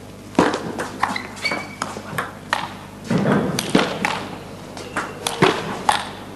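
Table tennis rally: the celluloid ball clicking off the rackets and the table in a long exchange, about two hits a second, as an attacker's loops meet a chopping defender's returns from far back.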